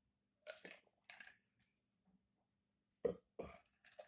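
A man drinking beer from a glass: short throat and breath sounds between sips, in two clusters, the loudest about three seconds in.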